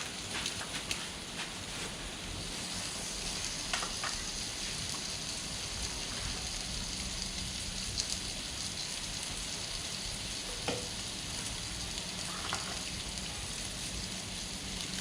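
Meat sizzling steadily on a tabletop mookata grill pan, with a few faint clicks.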